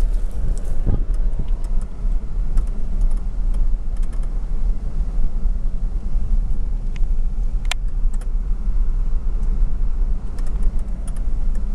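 Steady low rumble of a car's engine, tyres and wind heard from inside the moving cabin, with a few small rattles and clicks, one of them sharp about two-thirds of the way through.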